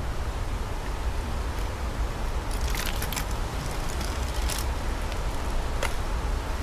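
Wind buffeting the microphone: a steady low rumble under a hiss, with a handful of sharp clicks in the middle.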